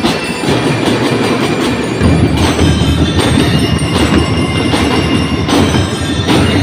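Drum and lyre corps playing: a dense run of snare drums with bass drums and the ringing notes of bell lyres. The bass drumming gets heavier about two seconds in.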